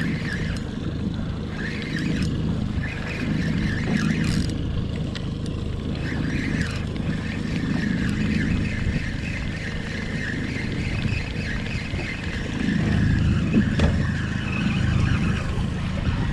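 Mercury outboard motor running steadily at trolling speed, a low drone that swells briefly past the middle.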